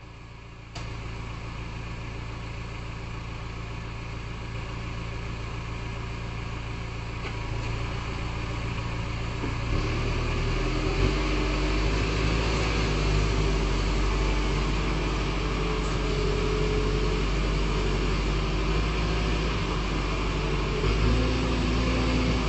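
Backhoe loader's diesel engine running steadily, its note rising and growing louder about halfway through as it is worked harder.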